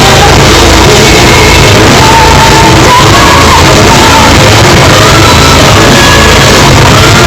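A metal band playing live, with a woman's sung line of held, gliding notes over loud guitars and drums. The recording is overloaded and distorted.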